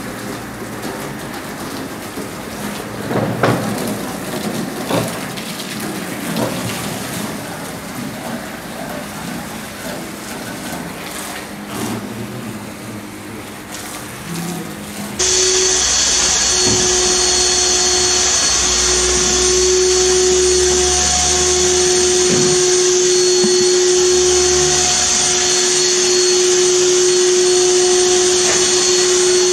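Water spraying from a hose onto the coil fins of an air-conditioner outdoor unit, a rushing, splashing noise. About halfway through it switches abruptly to a louder, steady motor-driven machine with a strong hiss and a steady whine.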